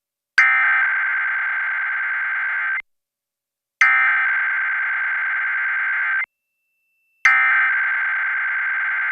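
Emergency Alert System SAME header, sent as digital data tones: three bursts of harsh, buzzy warbling, each about two and a half seconds long, with about a second of silence between them. It marks the start of an EAS required weekly test message, and the third burst is still sounding at the end.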